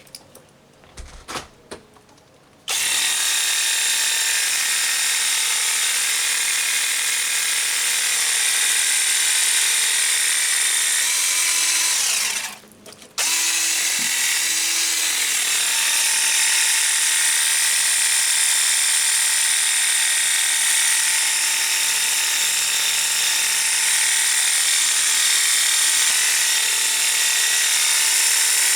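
Cordless 20-volt lithium-ion pressure washer running. Its electric pump starts suddenly a few seconds in with a steady high whine and the hiss of spray, cuts out for about a second near the middle, then runs on steadily.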